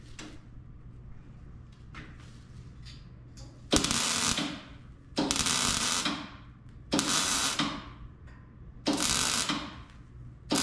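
MIG welder laying short stitch welds on a car's steel exhaust pipe: four bursts of crackling arc, each about a second long, the first about four seconds in, with a fifth starting at the very end. A low steady hum runs between the welds.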